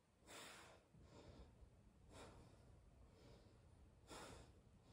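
Faint breathing of a woman exerting herself in a plank, a breath about once a second.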